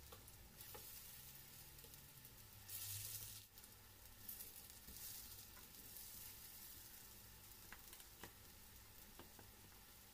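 Vegetable fritters sizzling quietly in hot shallow oil in a nonstick frying pan as they are turned. The sizzle swells about three seconds in, and there are a few light clicks of the fork and spatula against the pan.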